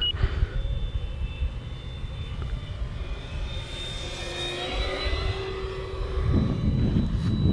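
E-flite Draco 2.0m RC plane's 6S electric motor and propeller whining at part throttle during a quiet flyby, with a lower tone joining about four seconds in and cutting off a couple of seconds later, over a low rumble. The sound grows louder near the end.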